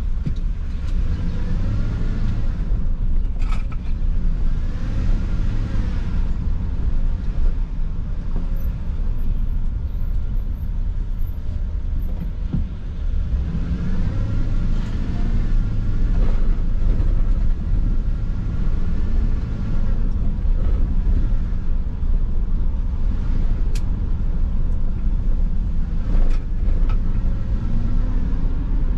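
Car engine and road noise heard from inside the moving car, a steady low rumble with a whine that rises and falls several times as the car speeds up and slows down.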